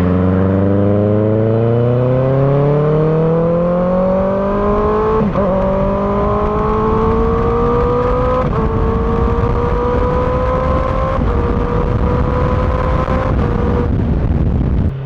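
Kawasaki ZX-6R inline-four with an M4 GP19 aftermarket exhaust accelerating hard, its note rising steadily and dropping back at each of several upshifts, with wind noise building as speed climbs.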